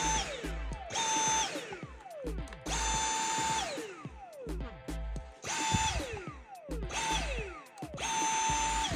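Dyson V7 cordless vacuum motor switched on and off by its trigger in short bursts, about six times. Each burst is a steady high whine that falls in pitch as the motor spins down on release. The motor runs on the newly installed replacement battery, a sign that the battery fault is cured.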